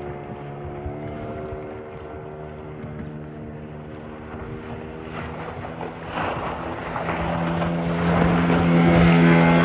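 An engine running at a steady speed, growing louder over the last few seconds with an added rushing noise.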